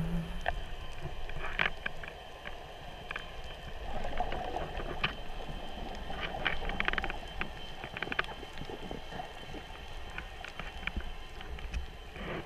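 Underwater ambience picked up by a camera in a waterproof housing: a muffled low rumble and wash of water with scattered sharp clicks and crackles.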